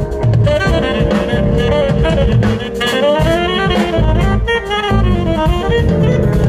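Tenor saxophone playing an improvised jazz solo in quick runs of notes that rise and fall, over drum kit and percussion of the band.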